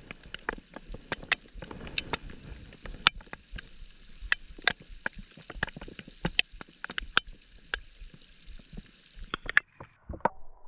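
Rain falling, heard as a scattered, irregular series of sharp drop ticks of varying loudness close to the microphone.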